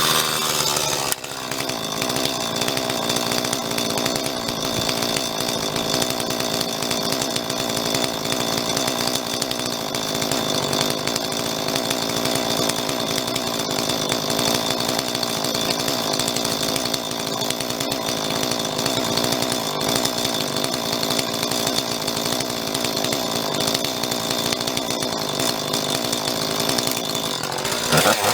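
Husqvarna 450 Rancher two-stroke chainsaw running steadily at high speed, cutting and flattening a wood slab, with a brief dip about a second in.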